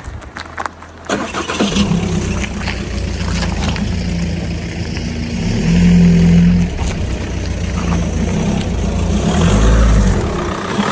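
Audi A3 8P's diesel engine running, with a few clicks in the first second and the engine sound coming in sharply about a second in, then rising and falling in load.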